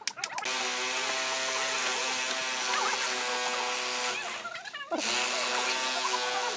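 A power tool running steadily, a high whir over a steady hum. It stops about four seconds in and starts again a moment later.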